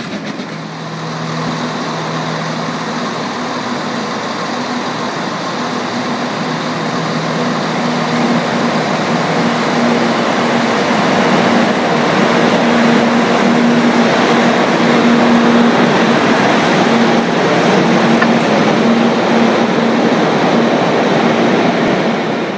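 Class 50 diesel locomotive's English Electric 16-cylinder engine working under power as it moves past the platform with its train, a steady engine note that grows louder from about eight seconds in, over the rumble of the passing coaches. The sound echoes under the station roof.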